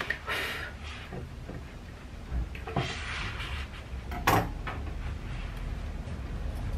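Grooming scissors and hands working on a Bichon Frise's head fur: a few short rustles and small snips, with one sharp click a little past four seconds, over a low steady hum.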